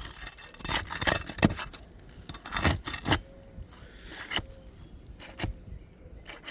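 Brittle roof shingles crackling and snapping as they are lifted: a series of irregular sharp cracks, the sign of shingles too brittle to lift without tearing.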